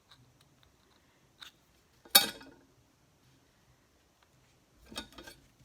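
Small hard objects being handled: a few sharp clicks and taps, the loudest about two seconds in and a short cluster near the end.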